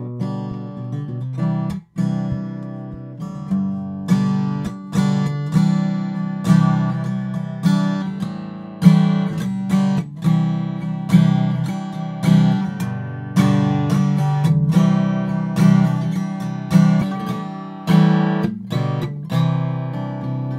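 Acoustic guitar strumming chords in a steady rhythm: a studio recording played back through the microphone tracks being compared (Neat King Bee, Neat Worker Bee, Aston Origin, Audio-Technica AT4050).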